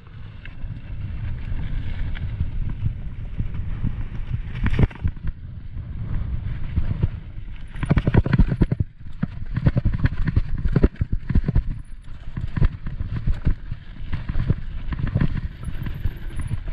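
Mountain bike rolling fast down a dirt and rock trail: wind rumbling on the microphone, with tyres on the ground and the bike rattling and knocking over bumps. The knocks come thick and loud from about eight seconds in as the trail turns rocky.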